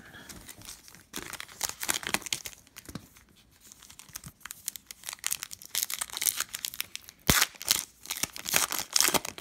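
Foil wrapper of a Donruss Optic basketball card pack being crinkled and torn open by hand, in irregular bursts of crackling that get busier in the second half, with one sharp snap about seven seconds in.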